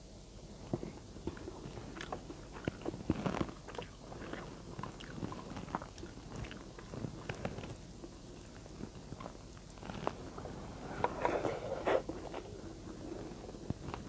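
A person chewing a mouthful of adobo and rice: irregular mouth clicks and chewing noises, busiest near the end.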